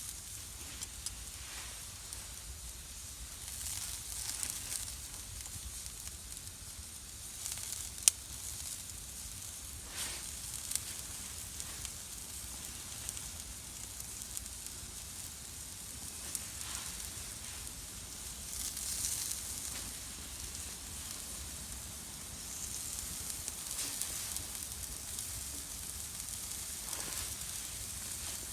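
Pork sausages sizzling over a wood campfire, a steady hiss that swells and fades, with the fire crackling now and then and one sharp pop about eight seconds in.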